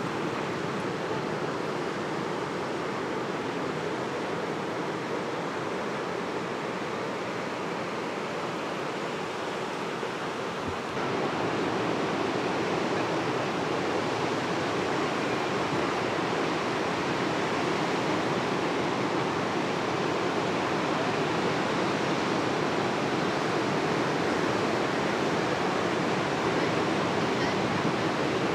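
Ocean surf breaking on a beach: a steady wash of waves that gets louder about eleven seconds in.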